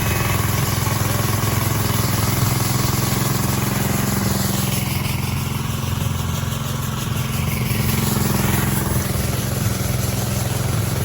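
Concrete pump's engine running steadily during a slab pour. It cuts in abruptly at the start and holds an even level throughout.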